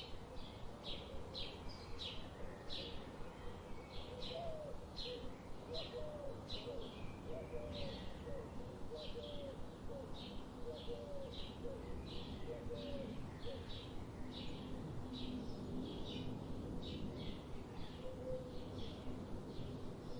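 Budgerigars chirping: short high chirps repeated about twice a second, steadily, with a run of lower, short whistled notes in the middle part.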